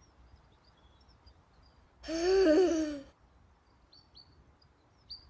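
A puppet character's voice gives a breathy, wavering, wordless groan for about a second, about two seconds in. Faint birds chirp throughout.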